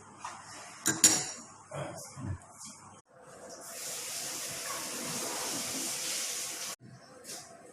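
Kitchen cooking sounds: a few sharp clinks and knocks about a second in, then a steady hiss lasting about three seconds that cuts off suddenly.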